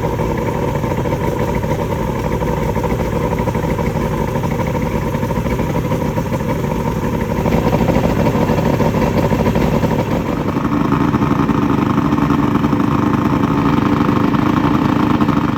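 Mercury boat motor running steadily underway, with water and wind noise; it grows louder about halfway through.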